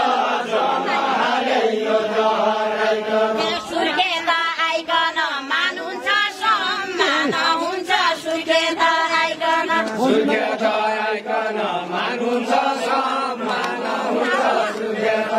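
Unaccompanied group singing of a Deuda folk song from far-western Nepal: men's and women's voices chanting a verse together in long held notes.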